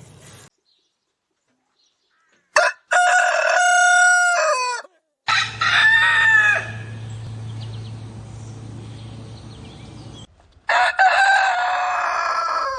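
Roosters crowing three times in separate clips cut one after another, each a long held call that drops in pitch at its end. The first crow comes after about two seconds of silence, and the last is still going at the end.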